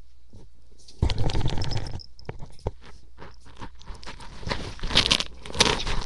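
A cat's face and mouth rubbing and chewing against a microphone, close up: loud scraping and crackling that starts suddenly about a second in, then many scattered clicks and crunches that grow denser.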